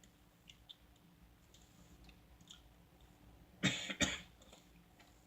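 A man coughing twice in quick succession, about three and a half seconds in, against faint room noise with a few small clicks.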